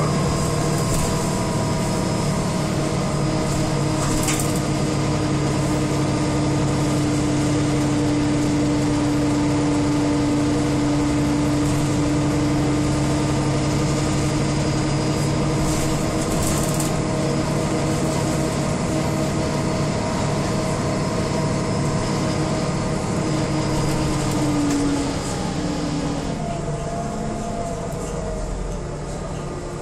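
City transit bus heard from inside the passenger cabin, its engine and drivetrain running with a steady drone and whine. About 25 seconds in, the whine drops in pitch and the sound eases off as the bus slows.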